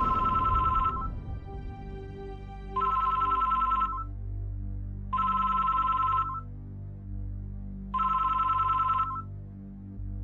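Red landline telephone ringing: an electronic two-tone trilling ring in bursts about a second long, four times, with a pause of about a second and a half between rings. Soft background music runs underneath.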